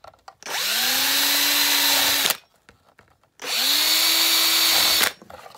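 Cordless drill with a 4 mm bit run twice, each time spinning up with a rising whine and then holding steady for about two seconds. It is boring 4 mm rivet holes through a black plastic panel into a wooden batten beneath.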